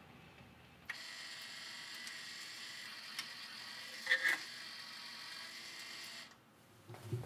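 AMI R-88 jukebox record-changing mechanism running: a steady mechanical whir starts about a second in, a clunk comes about four seconds in as the 45 is lifted off the turntable and back into the magazine, and it stops about six seconds in.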